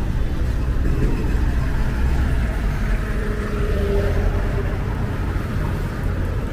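Street ambience: a steady hum of road traffic from motorbikes and cars, with a faint engine tone standing out around the middle.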